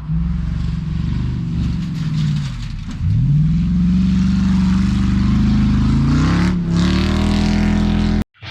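A motor vehicle's engine running and being revved: the revs drop, climb sharply about three seconds in and hold high, then cut off abruptly near the end.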